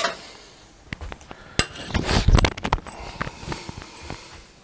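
Steel ruler and tools being picked up and handled on a workbench: scattered metal clinks and clicks, with a louder burst of rustling and clattering about two seconds in.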